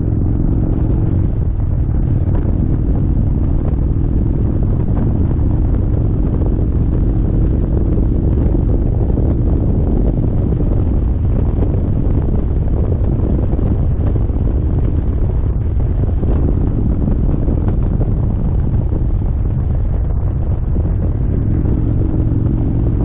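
Wind buffeting the microphone over an Indian Chieftain motorcycle's V-twin engine running at road speed, loud and steady. The engine's tone comes through more clearly near the start and again near the end.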